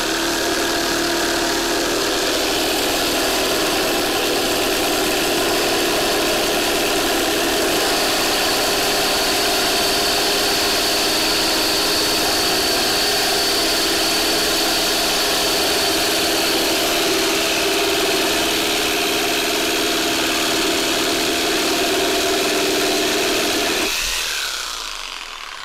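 Makita JR3050T corded reciprocating saw with a Milwaukee metal-cutting blade sawing through two 20×40 mm steel box-section tubes with 2 mm walls, fed by a 5 kg hanging weight. It runs as a steady mechanical drone, with a high whine over it for several seconds in the middle. About 24 seconds in the blade breaks through and the saw runs down.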